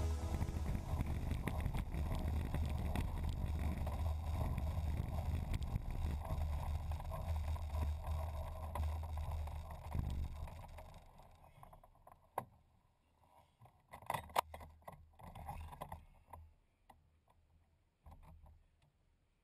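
LS6b glider rolling out over grass after landing: a steady low rumble from the wheel and airframe that slows and fades away about ten seconds in as the glider stops. It is followed by a few scattered clicks and knocks.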